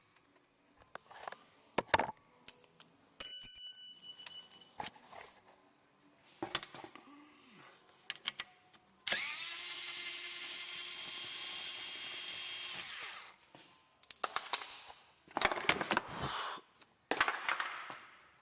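Cordless power tool spinning out the timing cover's bolts: a short run about three seconds in, then a steady run of about four seconds in the middle that winds down. Clinks and clatters of hand tools and metal parts come before and after.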